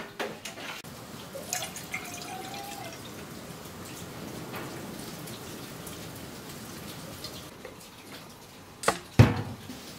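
Stock poured from a glass vessel into a stainless steel pot: a steady splashing stream of liquid. Two sharp knocks close together near the end.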